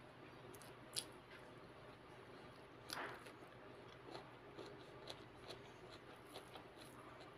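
Faint sounds of eating with the hand: fingers mashing and mixing rice on a plate, and chewing. Small soft clicks throughout, a sharp click about a second in, and a longer, louder squish about three seconds in.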